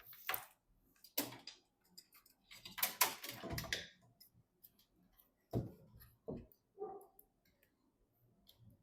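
Computer parts and screws being handled during PC assembly: scattered small clicks, taps and knocks, with a longer rustling clatter about three seconds in.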